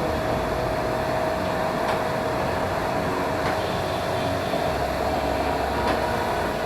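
Steady machine noise with a constant mid-pitched whine over a broad hiss, even in level throughout, with a few faint clicks.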